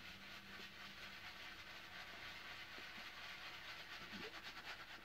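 Shaving brush scrubbing shaving cream on a wet face to build the lather: a faint, steady rustling hiss.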